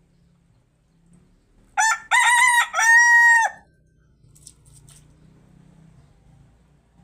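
Rooster crowing once: a cock-a-doodle-doo of about two seconds in three parts, a short first note, a wavering middle and a long held final note.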